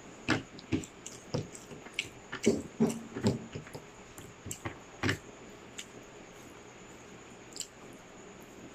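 A person chewing food with the mouth close to the microphone: an irregular run of smacks and soft wet clicks, busiest in the first five seconds, then only a few.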